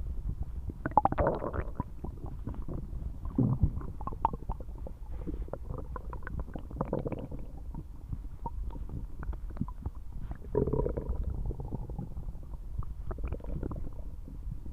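Human stomach rumbling and gurgling loudly, a continuous low churning with many small pops and bubbly swells, the loudest about a second in and around ten and a half seconds.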